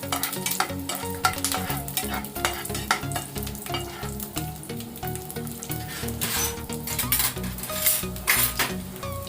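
Garlic cloves sizzling in hot sesame oil in a kadai while being stirred, with frequent sharp clicks and scrapes of the spatula against the pan.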